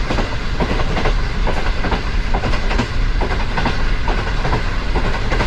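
Passenger train running on the track, heard from aboard: a steady heavy rumble with many quick, irregular clicks of the coach wheels passing over rail joints.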